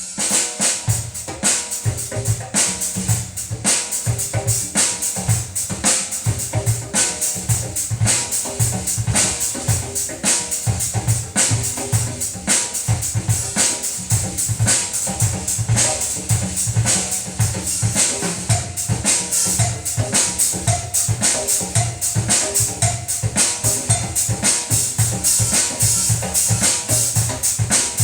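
Drum-driven music with a steady beat and heavy bass pulses, played through an Edifier S350DB speaker system as a sound test.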